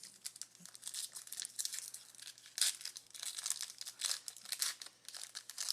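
Foil wrappers of Chronicles football card packs crinkling and tearing as the packs are opened and handled, in rapid irregular crackles.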